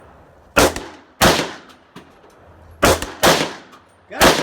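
Gunshots from a Glock 19 pistol and a 300 Blackout AR rifle firing at a water bottle: five sharp shots, coming in close pairs about a third to two-thirds of a second apart, with a single shot near the end.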